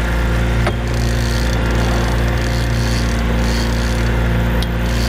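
Outboard motor running steadily at a constant low speed, a steady drone with water and wind hiss over it; a short click sounds twice, once near the start and once near the end.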